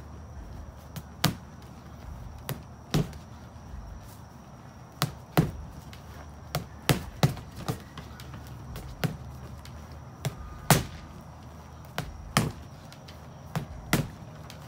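Boxing gloves punching a freestanding heavy bag: about seventeen sharp thuds at an irregular pace, single punches and quick pairs like short combinations.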